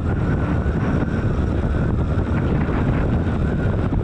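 A motorcycle riding along at road speed: steady wind buffeting on the microphone over the running engine and road noise.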